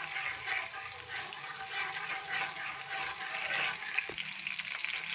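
Hot oil sizzling and crackling in a wok as chopped green chillies fry, stirred with a slotted metal spatula.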